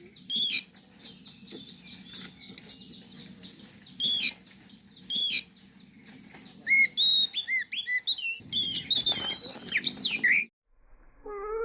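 Oriental magpie-robin (kacer) calling: sharp whistled notes and a fast chattering rattle, then a busier run of varied song that cuts off abruptly. Near the end a low, drawn-out wail begins.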